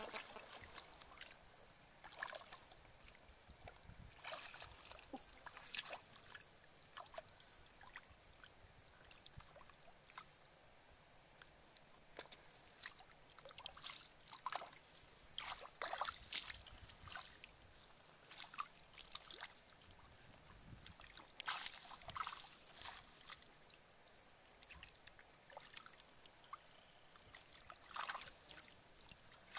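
Hands and bare feet moving through shallow muddy water: scattered small splashes, sloshes and trickles at irregular intervals, a few louder splashes around the middle and later on.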